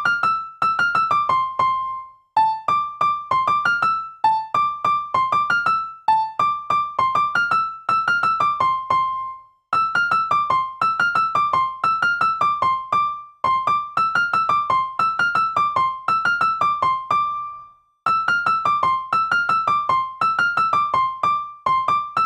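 Background music: a light keyboard melody of quick struck notes in short repeating phrases, pausing briefly between phrases.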